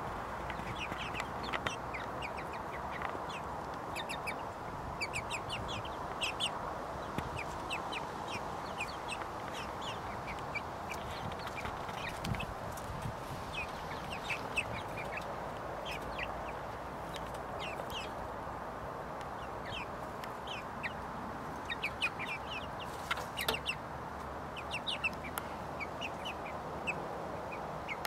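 Young chickens, about seven weeks old, calling in short high peeps, scattered throughout and several a second at times, over a steady background rush.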